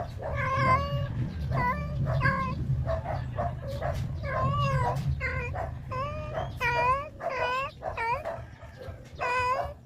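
A dog whimpering and yipping over and over in short, high, pitched calls that dip and rise in pitch.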